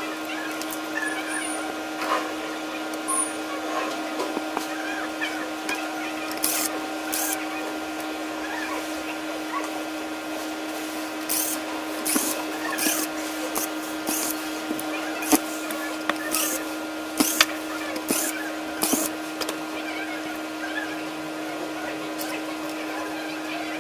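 Small plastic clicks and taps of camcorder housing parts, circuit boards and a screwdriver being handled and set down during disassembly, over a steady machine hum in the room.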